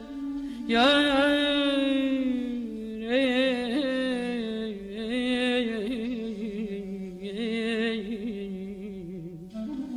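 Azerbaijani Segah mugham: a single melodic line enters loudly on a high held note about a second in and slides slowly down, then turns in quick trilled ornaments three times before fading near the end.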